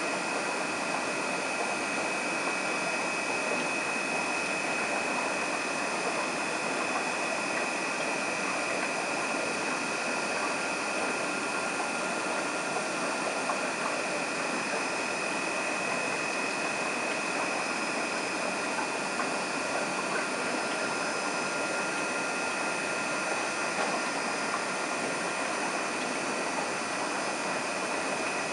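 Aquarium equipment running: a steady hiss with a few thin, high whining tones held at a constant pitch.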